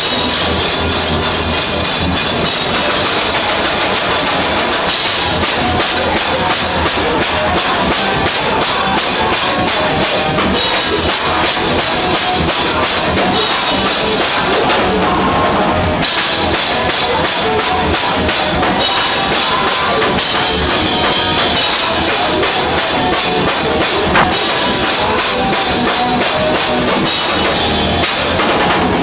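Live rock band playing loud: a drum kit with cymbals close up, with electric guitar and bass.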